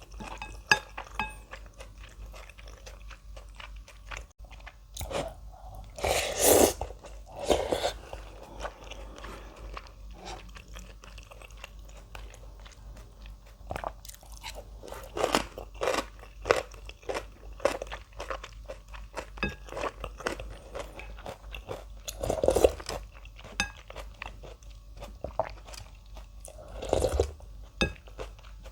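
Close-miked eating of ramen with cabbage and radish kimchi: wet chewing and crunching with many small clicks, and about five louder bites or mouthfuls spread through.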